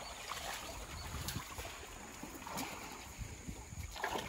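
Shallow creek water sloshing and splashing around wading Jersey cows, with a few soft knocks.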